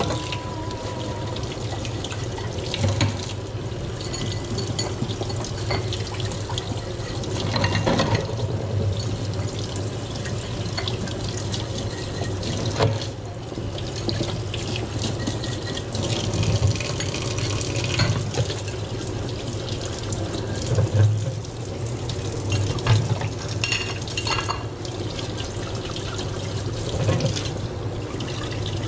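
Tap water running into a sink, with scattered clinks and knocks of cups and tools over a steady low hum.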